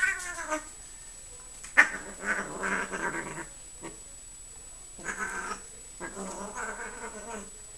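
Siamese cat meowing and yowling: a short falling meow at the start, then three drawn-out low yowls. A sharp click, the loudest moment, comes just before the first yowl.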